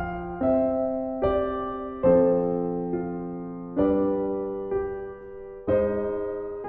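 Slow, gentle piano music: chords struck every second or two, each left to ring and fade.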